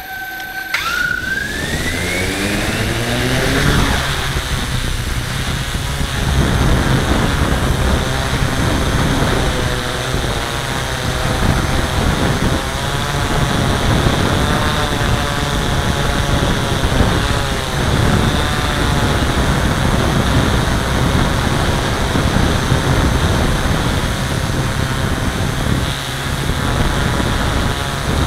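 Hexacopter's electric motors and propellers spinning up with a rising whine over the first few seconds, then a steady buzzing hum as it lifts off and flies, the pitch wavering with throttle changes.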